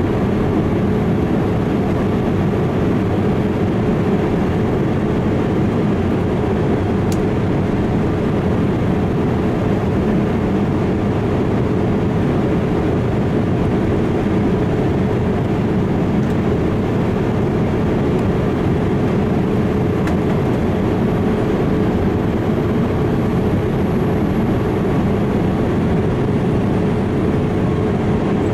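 Steady, unchanging low rumble of an All Nippon Airways Boeing 787-8 jet airliner, with a fainter rush of higher noise over it.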